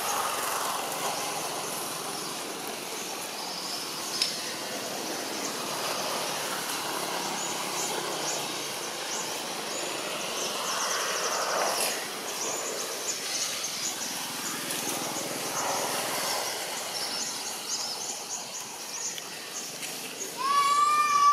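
Outdoor forest ambience with steady high-pitched chirping and a single sharp click about four seconds in. Near the end, a loud, clear-pitched animal call rises slightly and then holds for about a second.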